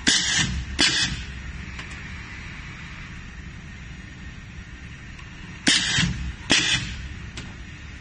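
Model 310 pneumatic cable stripping machine cycling twice, over a steady low hum. Each cycle is a pair of sudden clacks with a short rush of air as its air cylinders fire to clamp and strip the cable end. The second pair comes about five and a half seconds after the first.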